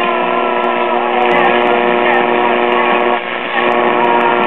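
A 1936 RCA Victor 5T1 tube radio playing an AM broadcast through its speaker: several steady held tones with a voice wavering over them.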